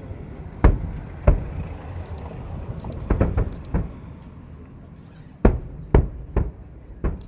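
Aerial firework shells bursting: about eight sharp bangs at irregular intervals, some in quick succession, each with a short rumbling tail.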